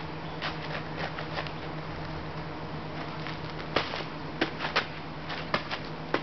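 Sneakers on a gravel driveway: a few light footsteps, then from about halfway a run of sharp crunches as the feet push off and land in off-ice jumps. A steady low hum sits underneath.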